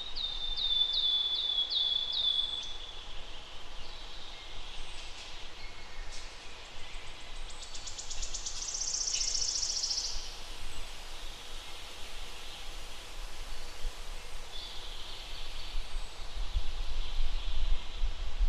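Wild songbirds singing in forest: a quick run of about seven high notes falling in pitch at the start, a fast, very high buzzy trill about eight seconds in, and another short song about fifteen seconds in. A steady low rumble of outdoor noise runs underneath and grows louder near the end.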